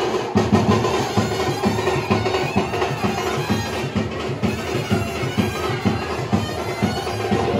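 Live traditional festival music: a reedy wind instrument holding steady notes over quick, even drumming.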